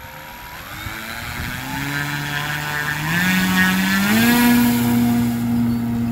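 Giant-scale RC plane's 50cc Rimfire brushless electric motor and propeller spooling up for takeoff, the whine rising in steps as the throttle is pushed forward, about one, three and four seconds in, then holding at full power on the takeoff roll.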